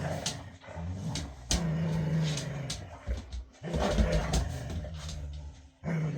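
Boxer dogs growling at each other in play: long low growls in several stretches broken by short pauses, with sharp clicks in between.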